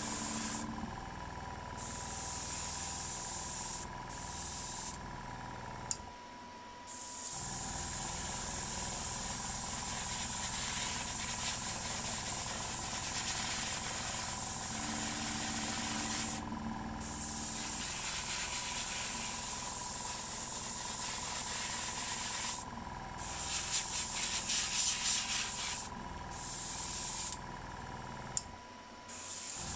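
Airbrush spraying red paint, its air hissing in stretches and cutting off between passes. Under it runs the steady hum of a small airbrush compressor, which drops out for about a second twice.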